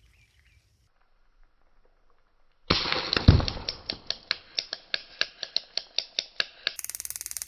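Electric taser-type stun device switched on, clicking sharply about six times a second, then crackling faster and brighter for about a second near the end.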